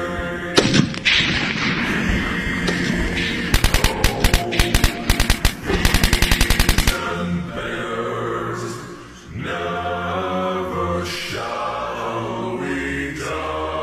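Rapid automatic gunfire in bursts, about eight shots a second, starting about three and a half seconds in and stopping around seven seconds, after a couple of sharp cracks near the start. Under it runs choral chanting music, which carries on alone after the shooting stops.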